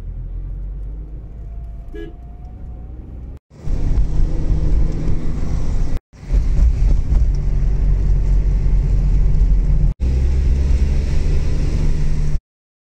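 Low engine and traffic rumble inside a car waiting in traffic, with a short car-horn toot about two seconds in. After a cut, loud road and wind noise from the car driving at speed, in three edited pieces with brief dropouts between them, stopping dead just before the end.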